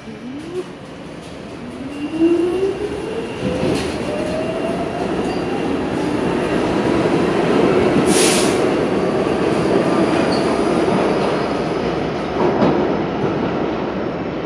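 Pullman Standard R46 subway train pulling out: its traction motors whine, rising in pitch as it accelerates, under a building rolling noise of the cars passing on the rails. The noise is loudest about eight seconds in, with a brief high-pitched burst at that moment.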